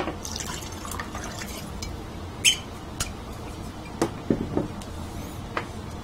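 Whisky poured from a bottle into a drinking glass, with a few sharp clicks and knocks of glass and bottle around the pour.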